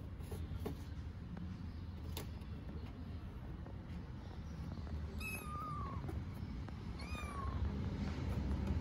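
A young kitten meowing twice, about two seconds apart, each a short, thin, high call that falls in pitch, over a low steady background rumble. A hungry kitten calling for food.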